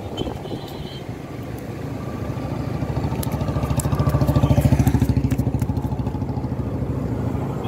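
A small engine's low, pulsing note passing close by: it grows louder to a peak about four to five seconds in, then slowly fades. Faint light clicks sit over it.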